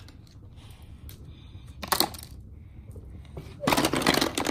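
Hard plastic Play-Doh tubs, lids and moulding tools clattering together in a plastic storage bin as a child's hand rummages through them: a short rattle about two seconds in, then a longer, busier clatter near the end.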